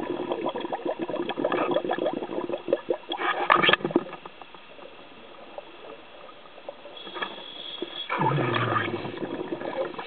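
Underwater bubble noise, typical of a diver's exhaled breath: a gurgling, crackling rush lasting to about four seconds in, quieter for a few seconds, then another rush starting about eight seconds in.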